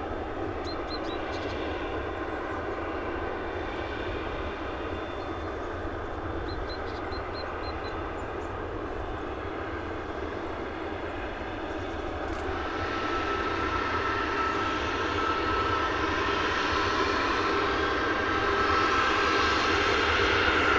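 Tu-22M3's NK-25 jet engines running on the ground: a steady rush of jet noise that grows louder from about halfway, with a high whine rising in level toward the end.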